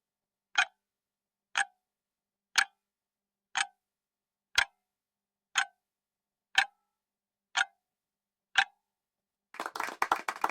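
Countdown-timer clock ticking sound effect, nine sharp ticks once a second, marking the 10 seconds to answer a quiz question. A short burst of clapping begins near the end.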